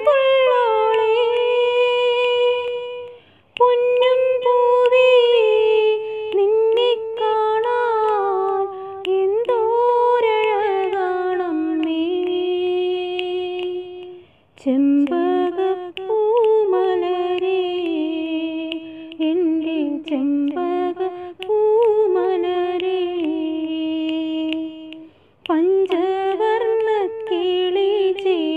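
A woman singing a Malayalam song unaccompanied, with ornamented phrases that slide and waver in pitch. Her voice breaks off briefly three times between phrases.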